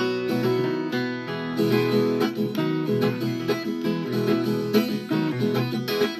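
Viola caipira, the Brazilian ten-string folk guitar, playing an instrumental interlude: a quick run of plucked and strummed notes, with no singing.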